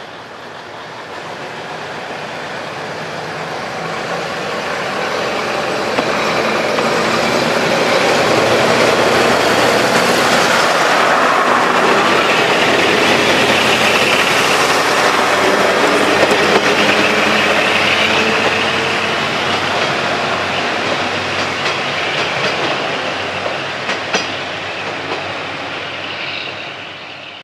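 Two-car Kiha 222 and Kiha 2005 diesel railcar train moving off and passing close by, its engines and wheels growing louder over the first several seconds and then fading as it draws away. Wheels clack over the rail joints, with a few sharp clicks near the end.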